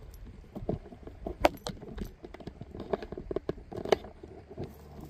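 Handling noise from the camera being picked up and turned around: irregular clicks, knocks and rustles, sharpest about a second and a half in and again near four seconds.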